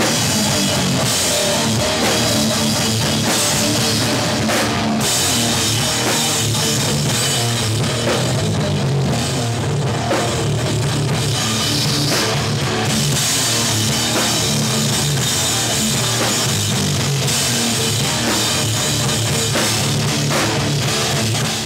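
Hardcore punk band playing live at full volume: drum kit and electric guitars in a loud, dense wall of sound, recorded from the stage beside the drums. It cuts off abruptly at the very end.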